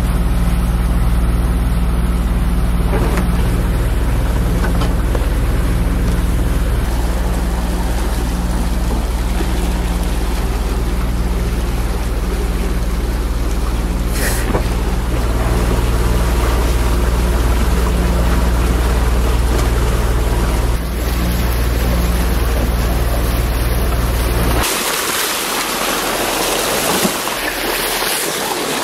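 Steady drone of a sailing yacht's engine under way, with a hiss of water and wind over it. About 25 s in the drone stops and a loud rush of water along the hull takes over.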